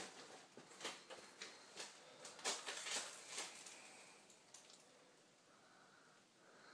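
Faint, irregular footsteps and scuffs on a staircase, a cluster of soft knocks in the first few seconds that then thins out.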